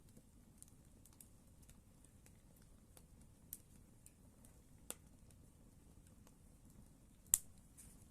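Wood campfire crackling softly over a low, steady rumble of flames, with many small scattered clicks and three sharper pops. The last pop, near the end, is the loudest.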